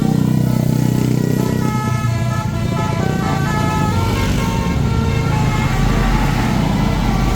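A tour bus's basuri musical horn playing a quick tune of short notes over the running bus engine. The tune stops about three seconds in, leaving the engine and a deeper rumble that grows near the end.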